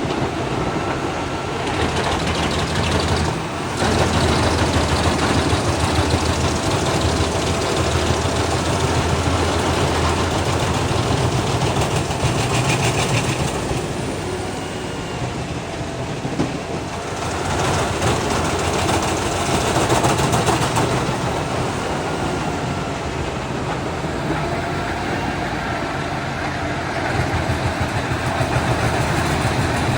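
A heavy engine running steadily, growing louder about four seconds in and again for a few seconds past the middle.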